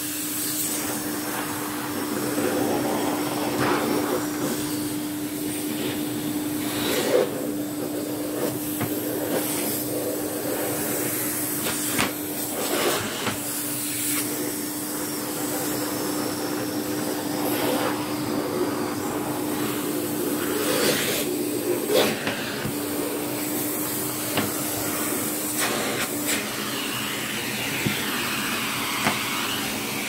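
Electrolux 87 vacuum cleaner running steadily, its motor humming under a rush of suction air, as a long bent crevice tool sucks dust out of a thick cloth vacuum bag. Occasional knocks and rustles come from the tool and the fabric being shifted about.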